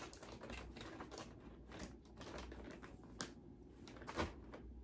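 Packaged snacks handled on a shelf: plastic bags crinkling, with a few sharp clicks and taps at uneven intervals.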